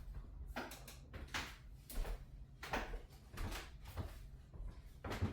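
Series of short knocks and thuds during a chiropractic back adjustment, the thrusts landing on the patient and the adjusting table. There are about eight of them, roughly one every two-thirds of a second.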